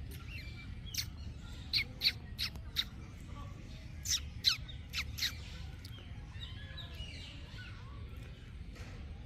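Birds squawking: a run of short, sharp, high calls in two quick bunches, then fainter chirping.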